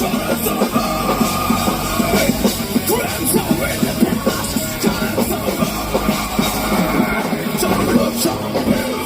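Live rock band playing loud, steady music in an instrumental passage of a song: drum kit with amplified guitars and bass.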